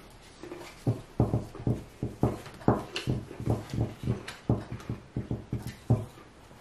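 A quick run of knocks on a wooden tabletop, about three a second, starting about a second in and stopping near the end.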